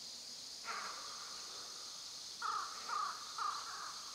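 A bird calling: one short call less than a second in, then three short calls about half a second apart past the middle.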